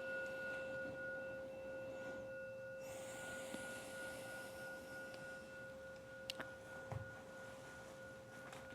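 A meditation bell rings out, its pure tone slowly fading after the strike, marking the end of a sitting meditation. A few faint clicks come near the end.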